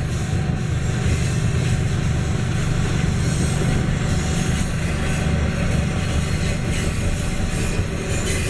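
Container freight train rolling past, a steady low rumble of the train on the rails.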